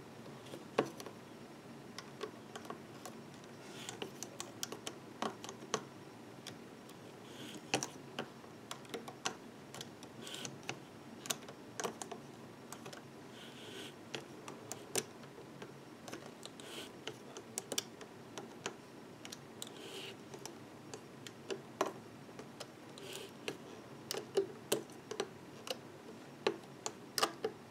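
Irregular small clicks and taps of a metal crochet hook and rubber bands against the plastic pegs of a loom-band board, with brief soft scratchy rubbing as bands are pulled over the pegs.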